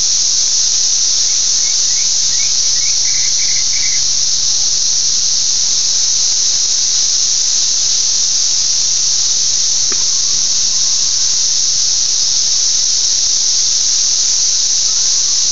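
A dense chorus of hundreds of 17-year periodical cicadas: one unbroken, high-pitched, static-like drone at a steady level, crazy loud.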